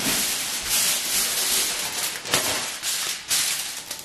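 Aluminium foil being pulled off its roll and handled, a crinkling rustle with a few sharper crackles.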